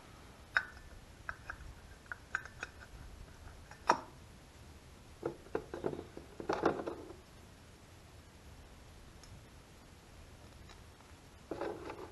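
Light clicks and taps of small metal and plastic Mikuni carburetor parts being handled and fitted together by hand. The taps are scattered through the first seven seconds, with the sharpest about four seconds in. A few more come near the end.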